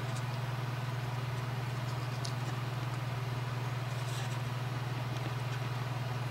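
A steady low hum of some running machine or appliance, with a couple of faint small scrapes from fingers handling and cleaning a small metal toy-train coupler.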